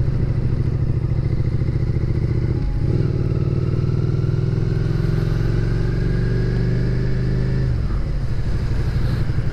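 Motorcycle engine running under way, heard on board the bike. About three seconds in the engine note breaks briefly, then its pitch rises slowly for about five seconds and drops near the end.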